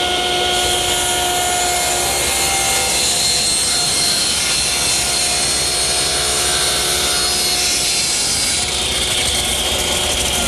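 Table saw running with a steady whine, its blade ripping a taper along a square wooden leg held in a tapering jig. The cutting noise thins a little near the end.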